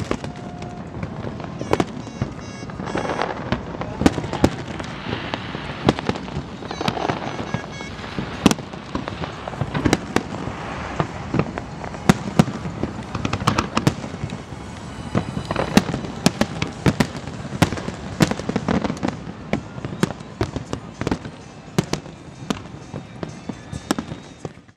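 Fireworks display going off: an irregular run of sharp bangs and crackles, often several a second, over a continuous rumble of further bursts.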